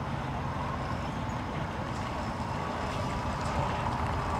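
An engine idling steadily in the background, a low, even rumble.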